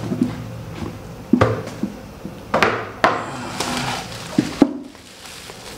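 Handling noise as a power supply and its bundle of cables are lifted out and unwrapped from a foam sheet: soft rustling, with a handful of sharp knocks and clacks from the cables' plastic connectors and the unit bumping together.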